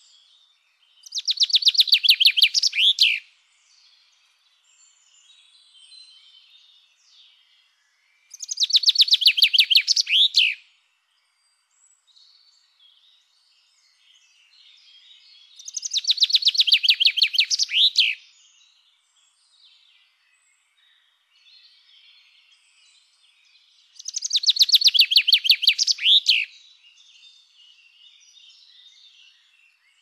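Madeira chaffinch singing: four songs of about two seconds each, spaced seven to eight seconds apart. Each song is a fast run of repeated notes ending in a short flourish. Faint twittering of other small birds fills the gaps.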